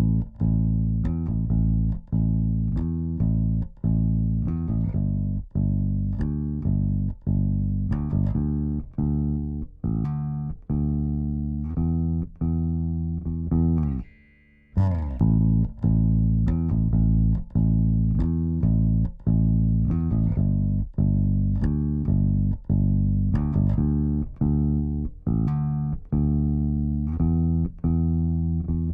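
Solo bass guitar playing a plucked bass line, a steady run of notes. It stops for about a second halfway through and the same phrase starts over.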